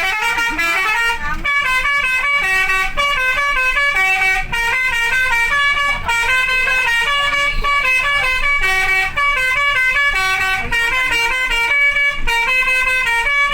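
Telolet horn, a set of electrically switched multi-tone air horns, playing a tune in quick stepped notes. It cuts off abruptly near the end.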